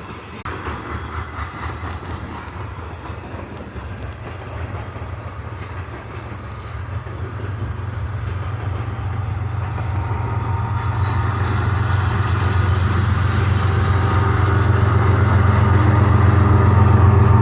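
Long freight train rolling past on the rails, with a diesel locomotive's engine hum growing steadily louder through the second half as a locomotive placed mid-train approaches.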